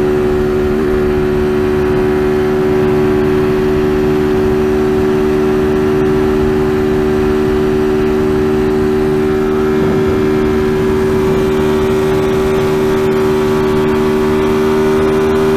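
TVS Apache RTR 200's single-cylinder engine held at high revs at a steady pitch while cruising at about 130 km/h, with wind rushing over the bike.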